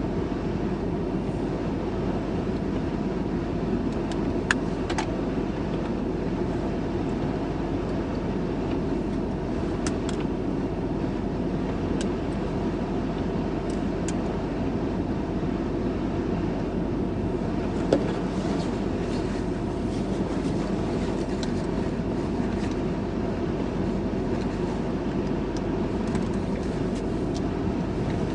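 Steady low rumble of a vehicle in motion, with a few faint sharp ticks.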